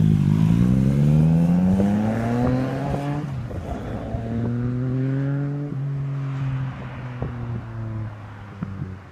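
Yamaha FZ-09's inline three-cylinder engine through a Yoshimura R77 exhaust, accelerating away: the revs climb for about three seconds, drop at an upshift, climb again, drop at a second upshift about six seconds in, then the note holds and fades as the bike rides off.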